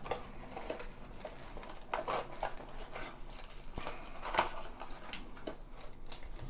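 Packaging rustling and crinkling in irregular bursts as a computer mouse is lifted out of its box, with a sharper crackle about four seconds in.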